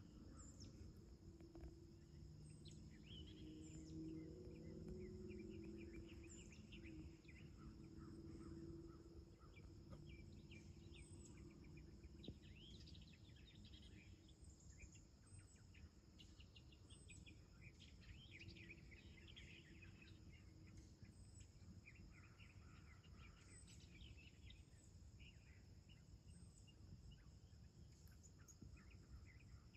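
Faint outdoor ambience: a steady high drone of insects with short bird chirps scattered throughout, over a low background rumble.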